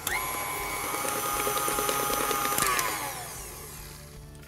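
Electric tilt-head stand mixer switched on, its motor whining up to speed. It runs steadily for about two and a half seconds with the beater working cream cheese and chocolate custard in a steel bowl, then is switched off and winds down with a falling whine.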